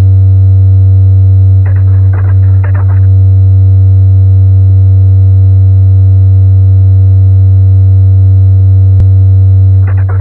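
Electronic soundtrack music: a loud sustained low synthesizer drone with steady higher tones above it. Brief crackly, noisy textures come in about two seconds in and again near the end, and there is a single click about nine seconds in.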